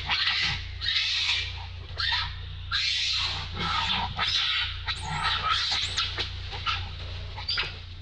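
Young macaques screaming in many short, shrill cries, several a second, as they chase and scuffle, over a steady low hum.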